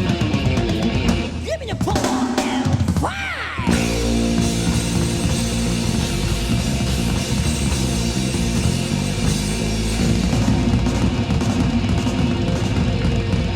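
Melodic Japanese heavy metal recording: an electric guitar lead swoops up and down in pitch, then the full band with a driving drum kit and distorted guitars comes in about four seconds in.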